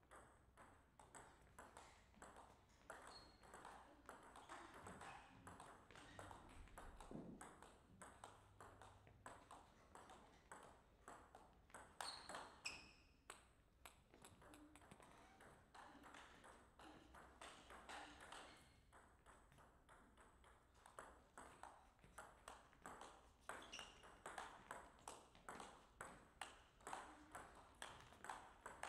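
Faint clicks of a table tennis ball bouncing off the table and the rackets during rallies, many sharp ticks in quick succession throughout.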